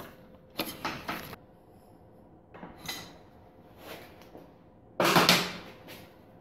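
Parts and tools being handled in a workshop: four separate bursts of clattering and rattling, the loudest a little after halfway.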